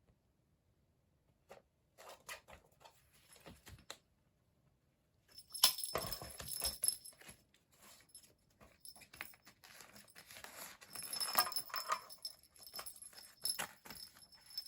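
Kitten playing: bursts of scrabbling, clattering and rustling that start about two seconds in and grow busy from about five and a half seconds on.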